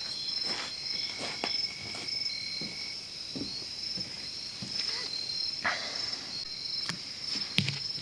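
Chorus of crickets and other insects: a steady high-pitched trilling, part of it in short regular pulses, with a few soft knocks and rustles over it.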